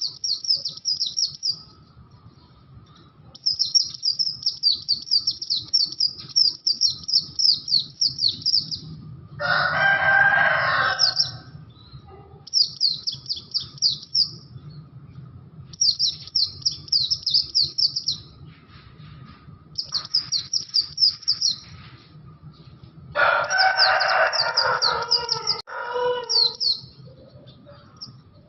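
Pleci (white-eye) songbird singing rapid, high chirping trills in repeated bursts of a few seconds with short pauses. A rooster crows twice, about ten seconds in and again near the end.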